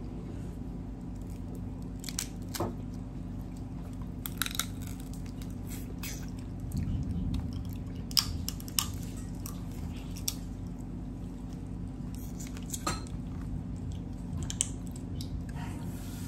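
Crab shells being cracked and pulled apart by hand, giving a dozen or so sharp snaps scattered through, with close-up chewing of the crab meat over a steady low hum.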